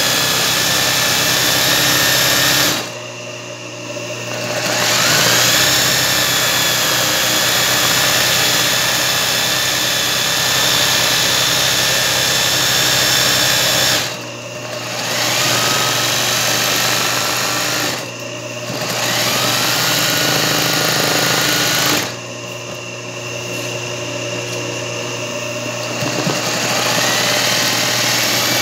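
Singer 20U industrial zigzag sewing machine stitching embroidery at speed. It stops four times, with a lower hum going on through each pause, and whines back up to speed each time it restarts.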